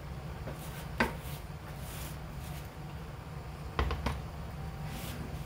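Kitchenware being handled on a counter: one sharp knock about a second in and two quick clicks near four seconds, over a low steady hum.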